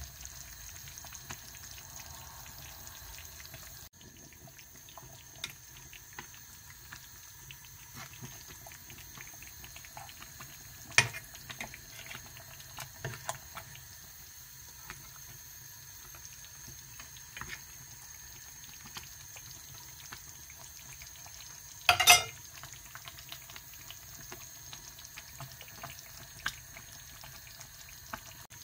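Tomato and pepper fish stew simmering in a pot: steady bubbling with many small pops, and a few louder clicks, the loudest about 22 seconds in.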